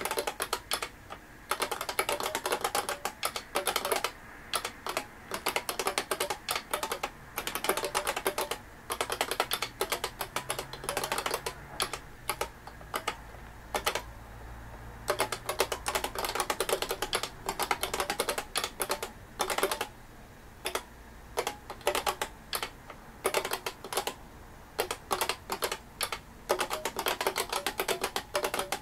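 Typing on an IBM 5251 beam spring keyboard: fast runs of mechanical keystrokes broken by short pauses every few seconds.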